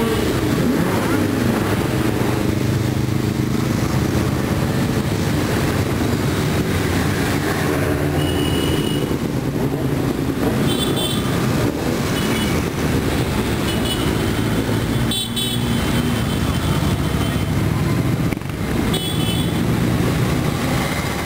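A procession of motorcycles and scooters riding past one after another, their engines running steadily, with short horn toots several times among them.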